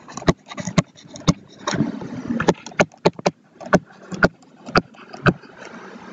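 A pen stylus tapping and scraping on a tablet screen during handwriting: a series of sharp clicks, about two a second, with faint scratching between them.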